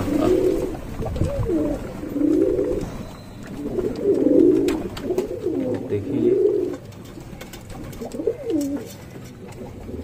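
Flock of rock pigeons cooing, several birds' low coos overlapping in repeated rising-and-falling phrases.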